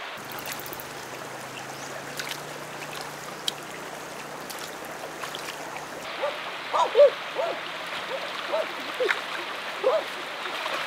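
Shallow river water running steadily over stones. From about halfway, short splashes and gurgling plops of water from someone washing and wading in it, the loudest a little past the middle.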